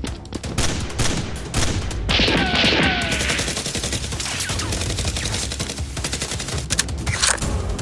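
Rapid, sustained automatic gunfire: many shots in quick bursts, in the style of the gun sound effects dubbed over Nerf blaster fights.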